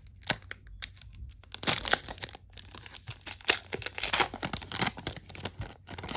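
A 2013 Panini Prism card pack's wrapper being torn open and crinkled, in a string of crackling rips that are loudest about two seconds and four seconds in.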